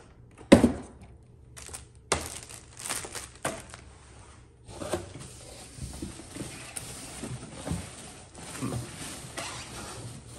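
Cardboard packaging and plastic wrap being handled: a sharp knock about half a second in and a weaker one about two seconds in, then steady rustling and crinkling as hands dig into a cardboard box.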